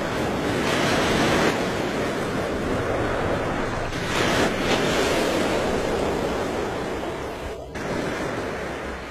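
Rushing, churning water with no clear pitch, swelling louder twice, about a second in and again around four to five seconds.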